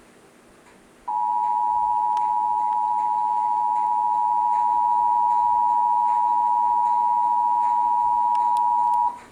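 Emergency Alert System attention signal: two steady tones of 853 and 960 Hz sounding together as one harsh dual tone. It starts about a second in, holds for about eight seconds and cuts off suddenly just before the end. It marks the start of a broadcast emergency alert message.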